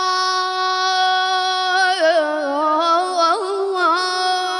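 A single high voice singing unaccompanied: one long steady note, then an ornamented run that wavers up and down about two seconds in, settling back onto a held note near the end.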